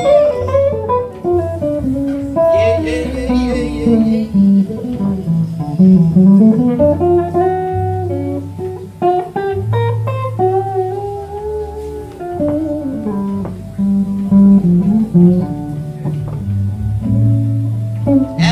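Slow blues played live by a band: an electric guitar plays a lead line with bent, gliding notes over bass guitar.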